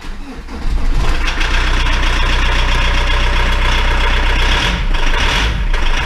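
Volkswagen Polo 6N engine starting, catching within about a second and settling into a steady idle.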